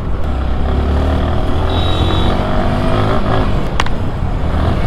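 Motorcycle engine running under way, its pitch rising as it accelerates, over a steady low rumble of wind and road noise.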